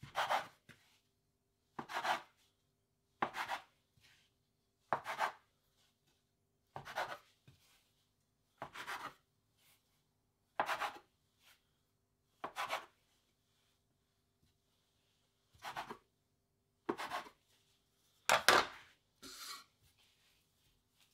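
Metal bench scraper cutting through bao dough and scraping down onto a wooden chopping board: about a dozen separate strokes, one every one and a half to two seconds, the loudest near the end.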